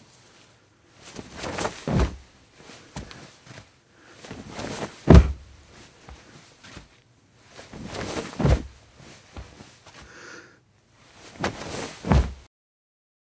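Rushing gusts of air pushed out of the tunnel ahead of an approaching metro train, buffeting the microphone in four surges about three and a half seconds apart. The sound cuts off abruptly near the end.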